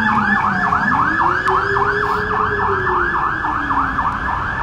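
Emergency vehicle siren in fast yelp mode, sweeping up and down about four times a second. A second, slower wailing tone rises and falls underneath it.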